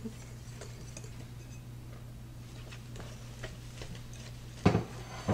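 Wire whisk stirring flour into a wet batter in a mixing bowl: faint, irregular ticks of the wires against the bowl, then two louder knocks near the end.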